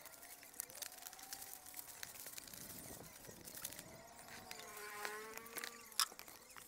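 Faint rustling of plastic wrapping and cardboard with scattered clicks as a parcel is cut open with scissors and a cardboard box's flaps are opened; the sharpest click comes about six seconds in. An insect buzzes close by with a wavering pitch.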